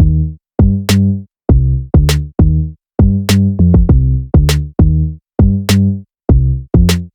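Background music: an electronic beat of punchy drum-machine hits with a pitched bass note on each, in a steady rhythm of about two to three hits a second.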